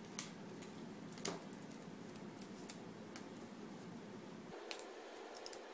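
Clear tape being pulled and torn off a desktop tape dispenser: a handful of faint, sharp clicks and snips spread over the few seconds, with a quick cluster near the end.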